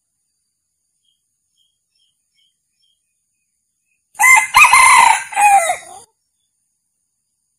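A male red junglefowl crowing once, about four seconds in: a short, broken crow lasting about two seconds.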